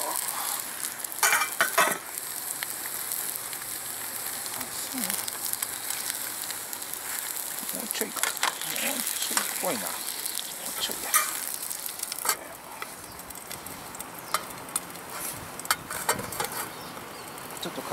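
Eggs sizzling as they fry in an aluminium pan over charcoal, a steady high hiss. Sharp clinks of the metal lid and pan come and go, a cluster of them about one to two seconds in.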